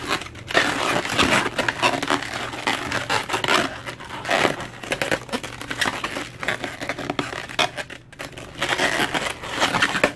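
Inflated latex twisting balloons rubbing and squeaking against each other and against the hands as a 160 balloon is knotted onto twisted 260 balloons: a dense, irregular run of scratchy rubs and squeaks.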